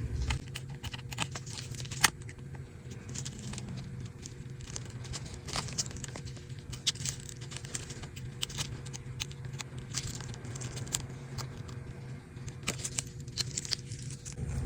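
Scattered small clicks and crackles of cracked screen glass and its adhesive being pried and peeled away from an iPad's frame, over a steady low hum.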